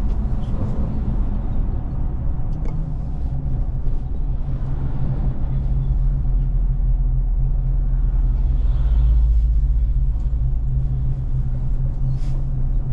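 Engine and road noise of a moving car heard from inside the cabin: a steady low drone.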